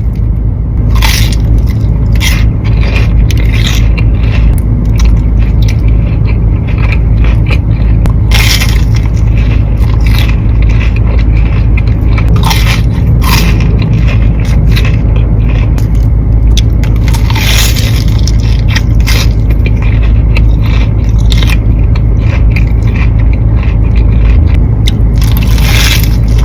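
Close-up eating sounds of fried mozzarella sticks: repeated crunchy bites into the breaded coating and chewing, over a steady low hum.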